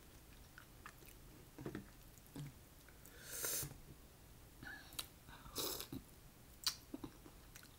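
Faint eating sounds of steamed mussels: chewing, small scattered clicks of mussel shells being handled and picked apart by hand, and two short noisy sounds, one about three seconds in and one near six seconds as a mussel shell is brought to the mouth.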